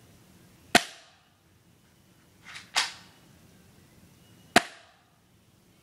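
Airsoft Beretta pistol firing three shots, each a sharp snap, about two seconds apart, with a faint click just before the second.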